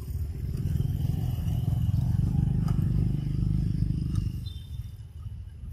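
A low rumble that swells over the first couple of seconds, holds, then fades away about five seconds in.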